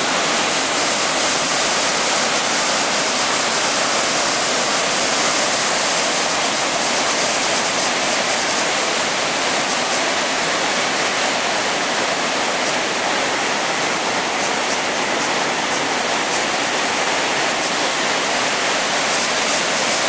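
Chaudière River falls, a wide waterfall in heavy, muddy flow, giving a loud, steady rush of falling water that holds even throughout.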